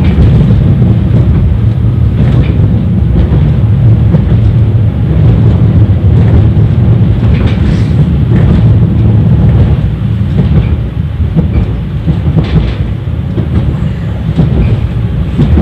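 71-931 "Vityaz" tram in motion, heard from inside the car: a loud, steady low rumble of the running gear on the rails, with a few faint knocks.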